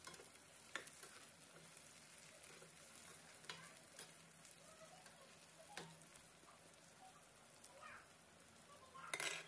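Sliced okra and onions frying gently in oil in a steel kadai, a faint steady sizzle, with a few light clicks of a perforated steel spatula against the pan as they are stirred. A brief louder noise comes near the end.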